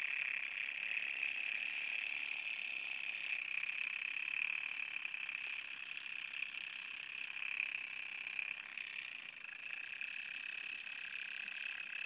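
Homemade Newman motor running: its magnet rotor spins while a wire contact on the shaft makes and breaks the coil circuit, giving a steady high buzz.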